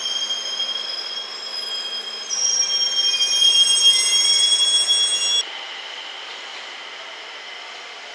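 Steel wheels of a JR Freight EF210 electric locomotive squealing on the rails as it creeps through the yard. It is a shrill, steady squeal of several high tones that gets louder about two seconds in and stops suddenly after about five seconds.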